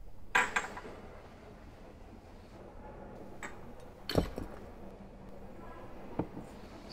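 Glassware on a table: a few light knocks and clinks, the loudest about four seconds in, over quiet room tone.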